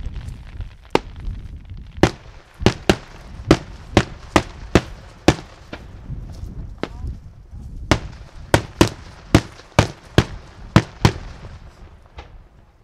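Senatore Fireworks daytime aerial shells bursting overhead: about twenty sharp bangs in quick, irregular succession, in two dense runs with a brief lull around the middle.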